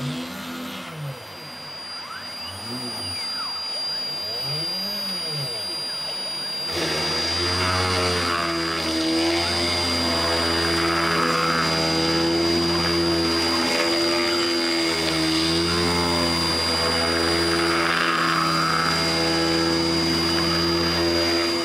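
CNC machine's DC spindle motor running, with a thin steady high whine at the pitch of its 5 kHz PWM drive while a 1/8-inch Dremel bit cuts into aspen. In the first few seconds the axis motors sound in tones that rise and fall as the machine moves. About seven seconds in, the spindle hum turns louder and steadier.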